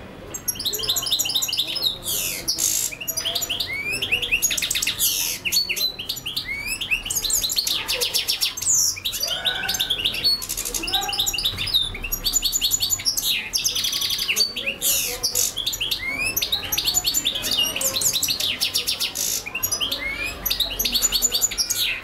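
European goldfinch singing a continuous, fast twittering song of rapid trills, quick repeated notes and buzzy phrases.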